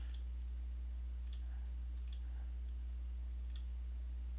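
Computer mouse clicking four times, a second or so apart, over a steady low electrical hum.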